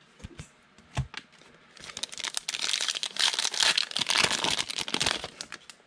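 Foil wrapper of a trading card pack crinkling as it is opened and the cards are pulled out, a dense crinkle of about three seconds starting about two seconds in. A couple of light knocks come before it, in the first second.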